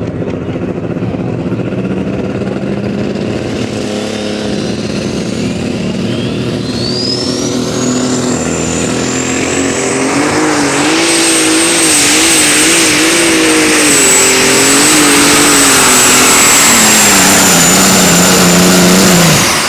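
A Ford super stock pulling tractor's turbocharged engine at full throttle on a pull. A turbo whine climbs steeply to a high, steady scream about six to eight seconds in while the engine grows louder. Near the end the engine note falls, and then the sound cuts off sharply.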